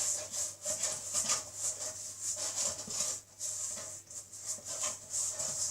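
Stirring a stiff icing-sugar meringue paste in a bowl: a repeated scraping rub, about three strokes a second.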